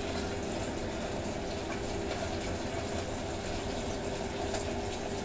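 Oil sizzling as food deep-fries in a pot, under a steady rumble with a constant hum from a kitchen range-hood fan.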